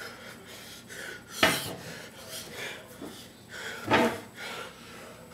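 Two sharp clattering knocks of hard household objects, about a second and a half in and again about four seconds in, with fainter knocking and rubbing between.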